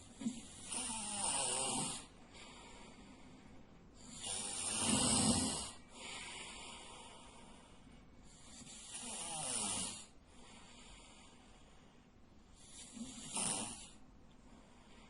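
A sleeping man snoring loudly: four snores about four seconds apart, each lasting one to two seconds.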